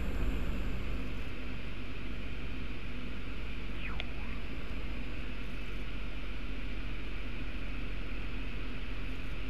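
Microlight aircraft engine and propeller running steadily, heard from inside the cockpit, with a short whistling chirp about four seconds in.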